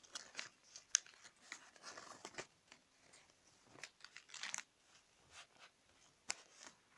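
A sheet of paper being folded and creased by hand: irregular rustling and crackling, with a sharper crackle about a second in.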